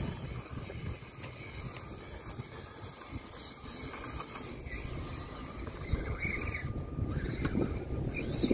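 Axial SCX24 micro RC crawler, with its 66-turn 050 motor and metal transmission gears, whirring faintly as it crawls over dirt and sticks. A steady low rumble on the microphone runs under it.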